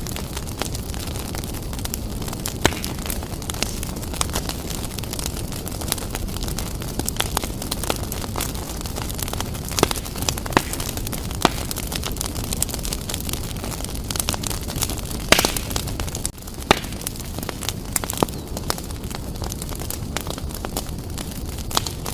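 Wood fire burning briskly in a fireplace: a steady low rumble of flames with constant crackling and a scattering of sharper, louder pops.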